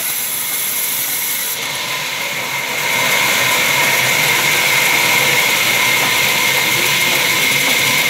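Large vertical band saw ripping a thick timber as it is pushed through the blade by hand: a steady high whine over the noise of the cut, getting louder about three seconds in.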